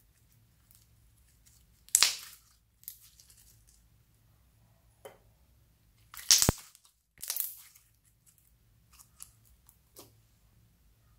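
Sticky glitter slime being stretched and squished by hand, giving crackling, tearing pops. The loudest come about two seconds in and again just past six seconds, with fainter clicks in between.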